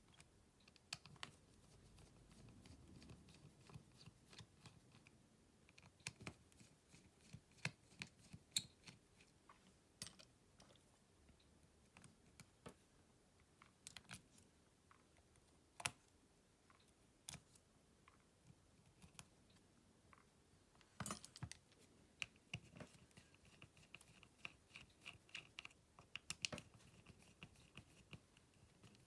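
Light clicks, taps and small scrapes of hand tools working on a smartphone's parts during disassembly, irregularly spaced, with a quick cluster of clicks about two-thirds of the way through and a faint run of rapid ticking after it.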